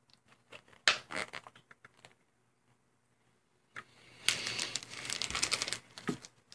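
Handling of a DIY kit's plastic tray and packets: a few light clicks and taps, then about two seconds of plastic crinkling.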